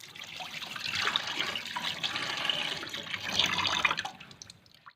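Water running and splashing into a cooking pot as it is filled for boiling; it fades out near the end.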